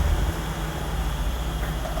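Mercedes-Benz S-Class (W222) engine idling steadily just after being started.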